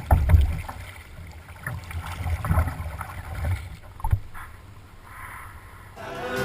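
Kayak being paddled on choppy water: irregular paddle strokes, splashes and knocks, with gusty wind buffeting the microphone. Acoustic guitar music fades in near the end.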